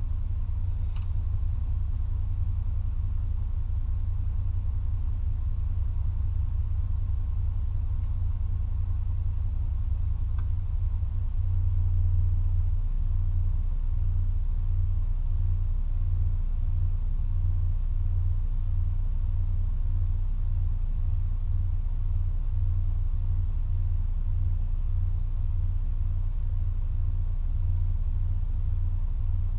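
Low, steady rumble of a 2004 Toyota Tacoma TRD Off-Road pickup running, with a slow, even pulsing in the rumble from about eleven seconds in.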